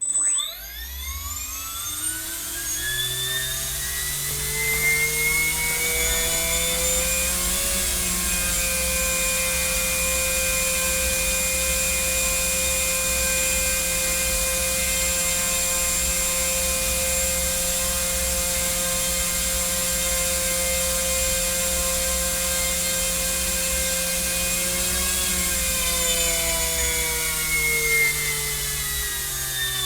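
ESC-driven electric motor on a thrust test stand running an automatic speed sweep: it starts suddenly, whines up in pitch for about eight seconds, holds a steady pitch, then winds down over the last few seconds.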